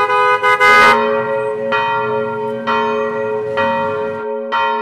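Church bell ringing: a quick cluster of strikes at the start, then single strokes about once a second, each left to ring on.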